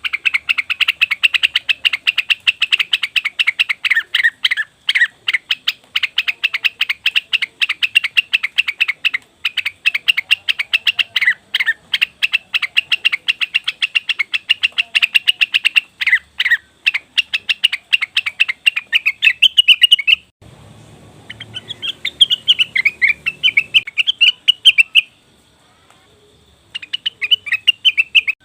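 Cucak wilis / rengganis leafbird calling in a fast chattering run of sharp chirps, about five a second. Around twenty seconds in it breaks briefly under a low rumbling noise, and it falls silent for a moment near the end before starting again.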